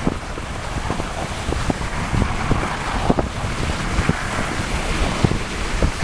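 Dog sled gliding over snow: the runners hiss steadily under wind noise on the microphone, with irregular light knocks and creaks from the sled as it moves.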